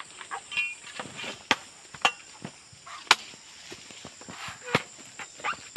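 A handful of sharp, irregular knocks or snaps about a second apart, over a steady high-pitched buzz of insects.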